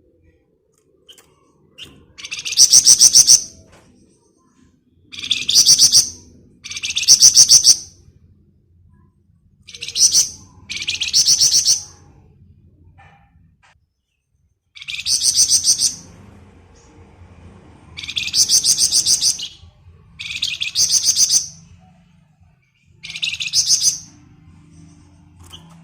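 Flamboyan songbird singing its 'ngebren' song: nine rapid, buzzing high-pitched trills, each about a second long, with pauses of one to three seconds between them.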